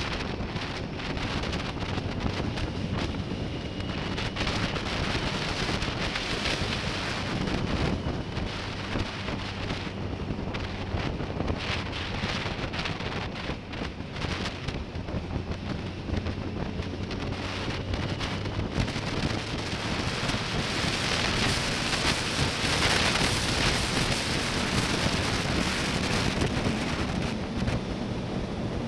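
Heavy wind buffeting the microphone on a moving motorcycle, with the 2005 BMW K1200S's inline-four engine running steadily underneath. The wind noise grows louder about two-thirds of the way through.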